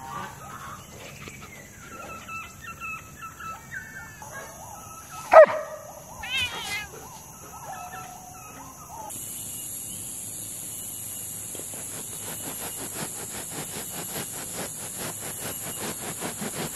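A German Shepherd and a ginger cat playing, with short scattered dog and cat calls and one sharp, loud sound about five seconds in. In the second half a steady high hiss sets in, with a quick, regular rasping that speeds up toward the end.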